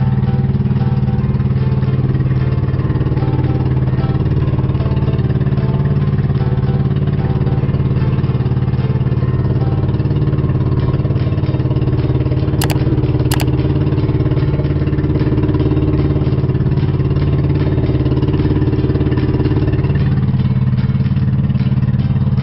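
Pump boat's engine running steadily under way at cruising speed, with a steady low drone. Two short sharp clicks come about halfway through, and the engine note shifts slightly near the end.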